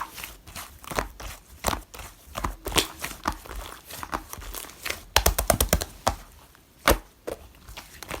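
Slime being squished and pressed by hand, making irregular sticky crackles and pops, with a quick run of pops about five seconds in and one sharp pop near the end.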